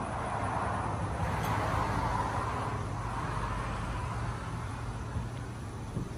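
A car passing on the street. Its tyre and engine noise swells to a peak about two seconds in, then fades away over a low steady rumble.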